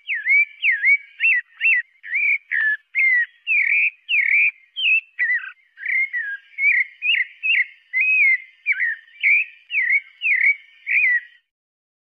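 Pale-breasted thrush singing: a steady run of short, clear whistled notes, each a quick slurred up-and-down phrase, about two a second, stopping shortly before the end.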